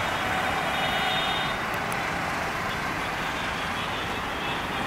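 Steady road traffic noise heard from a cycle rickshaw moving along a busy city road. A thin high tone is heard for about the first second and a half.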